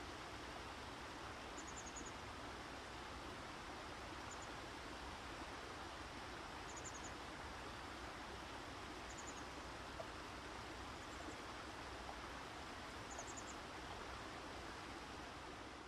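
Outdoor nature ambience: a steady, even rushing hiss, with a bird's brief high chirps about every two seconds.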